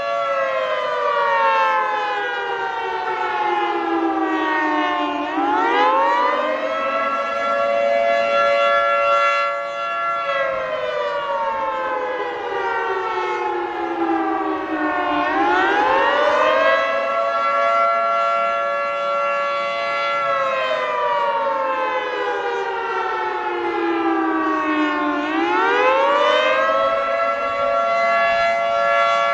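Federal Signal 2T22 dual-tone outdoor warning siren sounding the attack signal: a two-note chord that winds up quickly, holds, then slowly winds down, rising again about every ten seconds, three times over.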